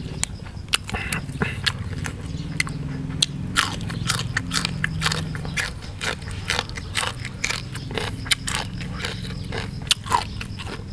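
A person chewing a mouthful of Isan beef laab and raw vegetables close to the microphone, with a steady run of wet mouth clicks and short crunches, several a second.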